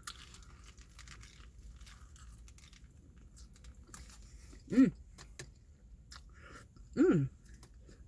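Close-up chewing of a sloppy double cheeseburger, with small wet mouth clicks. Twice, about five and seven seconds in, a short vocal sound falling in pitch breaks in, the loudest thing heard.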